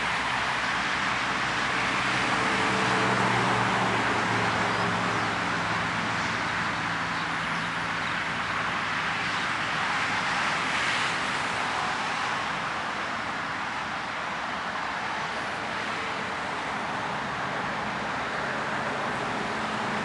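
Steady rushing airport ramp noise, with a low engine hum that fades in and out.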